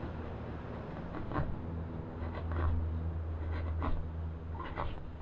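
Hand tool working a pine board: a few short scrapes and light knocks, spaced irregularly, over a steady low hum.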